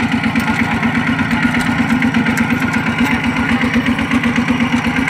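Single-cylinder diesel engine of a two-wheel walking tractor running steadily, with a fast, even chugging.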